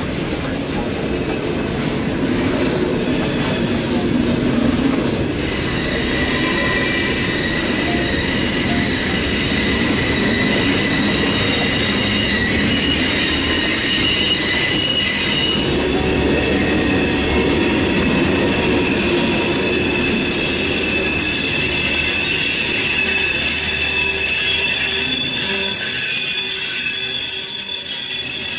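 Freight train of open-top hopper cars rolling past, its wheels rumbling on the rails. About five seconds in, steady high-pitched squealing from the steel wheels joins in, several tones at once, and keeps on.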